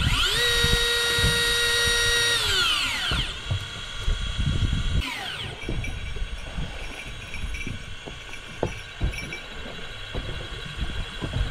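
A small electric motor spins up, runs at a steady whine for about two seconds, then winds down. A second, shorter wind-down comes about five seconds in, with scattered low knocks and thumps throughout.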